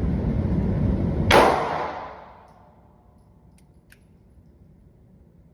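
A single shot from a Glock 43X 9mm pistol about a second in, sharp and ringing out over about a second, after a steady low rumble that fades away behind it. Two faint clicks follow a couple of seconds later.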